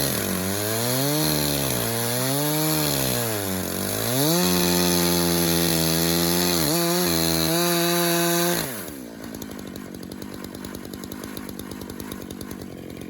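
Chainsaw on a Granberg Alaskan chainsaw mill ripping a log. Its engine speed rises and falls under the load at first, then holds steady at high revs. About nine seconds in the throttle is let off and the saw drops to a fast, quieter idle.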